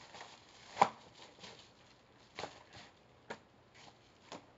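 A stiff mailing envelope being opened by hand: a series of short sharp clicks and taps of paper and packaging, the loudest about a second in.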